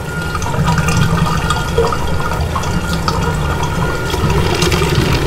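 Steady rush of water flowing into a street storm drain, strongest in the low end.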